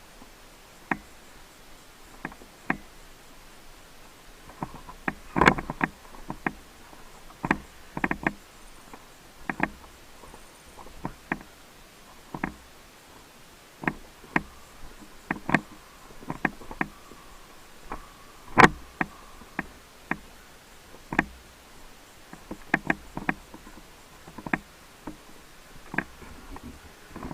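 Irregular sharp snaps and knocks of an indoor airsoft game, about one a second with a few quick clusters: airsoft shots and BB impacts on hard surfaces.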